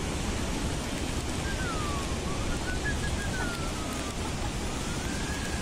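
Steady rushing of floodwater from an overflowing dam, pouring over a weir and churning in wide rapids.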